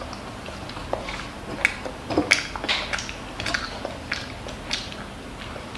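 A child chewing a mouthful of kimchi fried rice close to the microphone: a string of short, irregular wet clicks and smacks.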